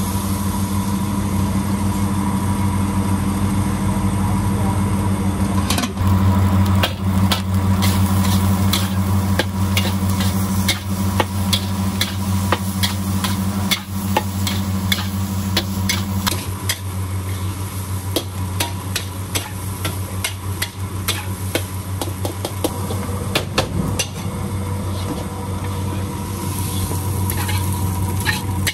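Metal spatula clanking and scraping against a steel wok while rice is stir-fried, with many quick strikes starting about six seconds in, over a steady low hum from the stove. Near the end the rice is tipped out of the wok.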